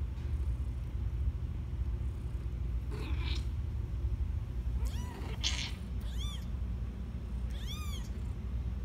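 A kitten mewing: several short, high-pitched mews from about three seconds in, the later ones rising and falling in pitch. A steady low hum runs underneath.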